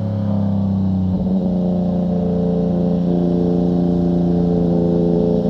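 Yamaha MT-09's three-cylinder engine running through a Fuse Caracol exhaust with the dB killer removed. The tone shifts briefly about a second in, then holds steady, edging slightly higher near the end.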